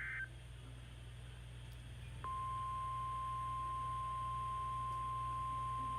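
The tail of an Emergency Alert System digital header burst cuts off just after the start. About two seconds in, a single steady warning tone near 1 kHz begins and holds, the NOAA Weather Radio 1050 Hz alert tone announcing a severe thunderstorm warning. A low steady hum runs underneath.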